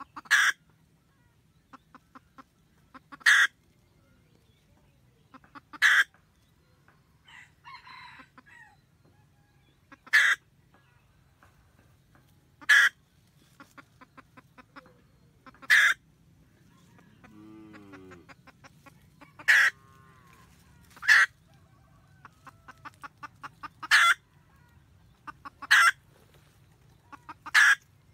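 Red junglefowl hen cackling to call the rooster: runs of quick soft clucks, each ending in a loud, sharp cackle note. The cycle repeats about every two to three seconds.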